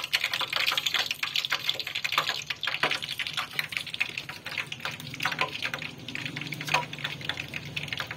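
Hot cooking oil bubbling and crackling in a frying pan: a dense, irregular patter of small pops, busiest in the first few seconds, over a faint low hum.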